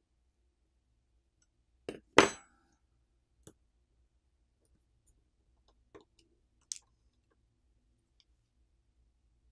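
Small plastic and metal phone parts being handled during disassembly: a sharp clack with a brief ring about two seconds in, then a few faint clicks.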